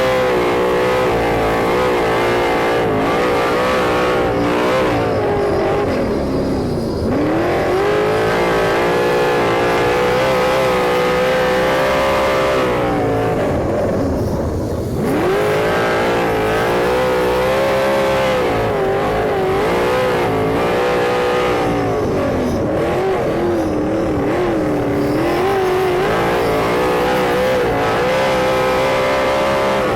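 A sprint car's engine running at racing speed. Its pitch drops sharply as the driver lifts for the turns about 7 and 15 seconds in, then climbs back and holds high down the straights, with shorter dips later on.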